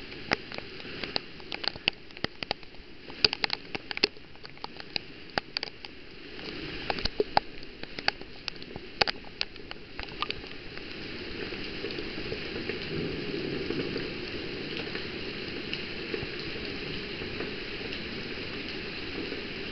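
Heavy thunderstorm rain. For about the first ten seconds large drops hit a surface close by as many separate sharp ticks over the hiss; then the rain thickens into a steady, slightly louder downpour.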